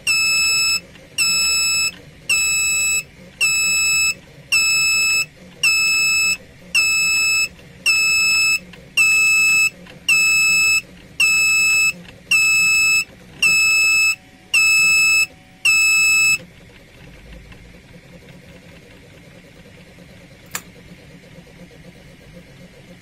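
Electronic buzzer of a thermal-runaway tester beeping steadily, a bit more than one beep a second, as an over-temperature alarm while a heated thermal sensor reads HIGH. The beeping stops about two-thirds of the way in, and a single sharp click follows near the end.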